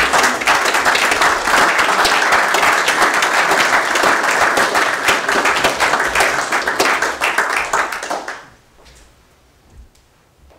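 Audience applauding: dense, loud clapping that tails off and stops about eight seconds in.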